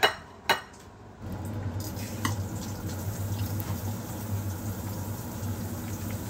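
Two sharp clinks of tableware about half a second apart. Then, from about a second in, a steady low hum and hiss of a pot of chicken-feet soup cooking on a stove.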